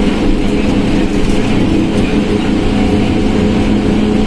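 Volkswagen Volksbus 17.230 OD bus engine running steadily with a constant drone. The bus's transmission growls, a known fault of this vehicle.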